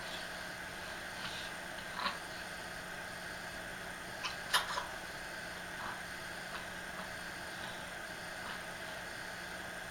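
A person's short, soft coughs at the tail of a night-time coughing fit: one about two seconds in and a louder pair about four and a half seconds in, over a steady low hum.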